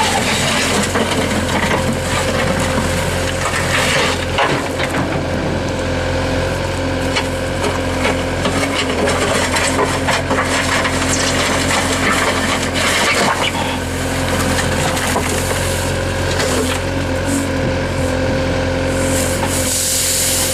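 Road construction machine running steadily: an engine's steady hum under continuous scraping and rasping, like material being worked against the ground.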